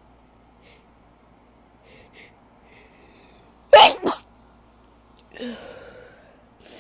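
A woman sneezing once, loud and sudden, about four seconds in, the blast coming in two close peaks. Quieter breathy noises come before it and about a second after it.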